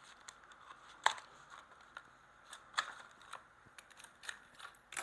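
Hands opening a Hot Wheels blister-card package: scattered sharp clicks and crackles of the plastic bubble and card, the loudest about a second in.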